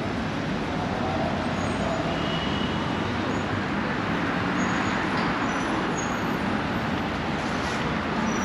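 Steady road traffic noise from cars on the street alongside.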